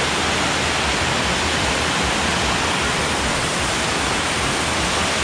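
Waterfall cascading over rock ledges close by: a steady, even rush of water.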